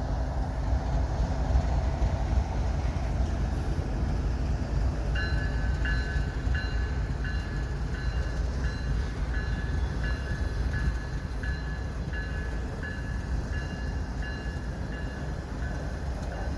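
Double-stack container train rolling slowly past, a low steady rumble. About five seconds in, a bell starts ringing in a steady rhythm, roughly one and a half strikes a second.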